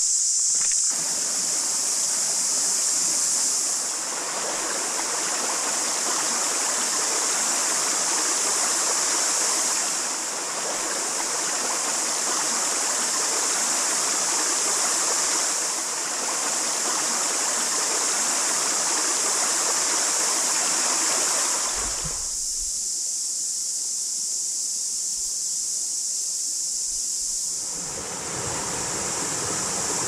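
Shallow river water running over stones, a steady rushing whose level shifts at several points. For about five seconds from roughly 22 seconds in, the water drops away and only a steady high insect chorus remains; the chorus carries on throughout. A low rumble joins the water near the end.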